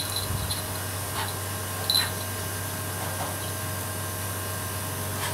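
Air-conditioner unit humming steadily, with a few faint short clicks.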